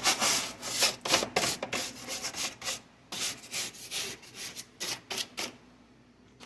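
Stiff brush scrubbing a vehicle center console soaked with diluted dishwashing-liquid degreaser, in quick back-and-forth strokes a few times a second that stop about five and a half seconds in.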